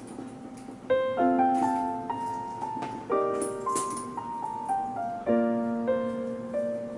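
Background piano music: soft chords struck every second or two, each note ringing out and fading.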